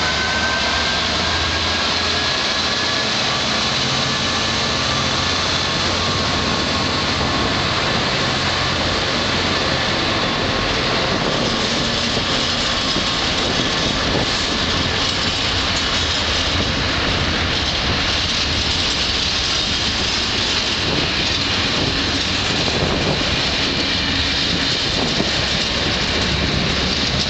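Loaded container wagons of a freight train rolling past at speed behind a Class 66 diesel locomotive, a steady noise of wheels on the rails. In the first few seconds the departing locomotive's engine drone and a slowly rising whine can be heard fading away.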